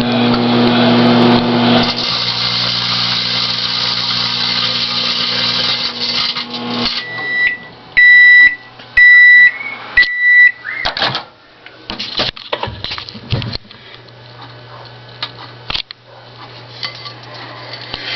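Microwave oven running with a steady hum and a loud noisy crackle from the empty chip bag shrinking inside. The oven stops about seven seconds in and beeps four times, followed by a few clicks and knocks.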